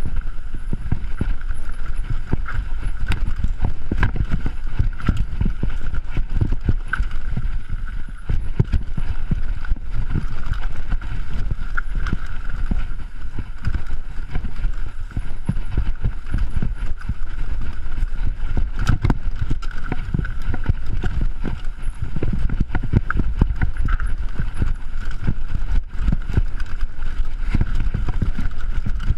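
Mountain bike clattering down a rough dirt trail, picked up by a chest-mounted GoPro HERO3: a dense, continuous run of knocks and rattles as the bike and tyres hit bumps, over a low rumble.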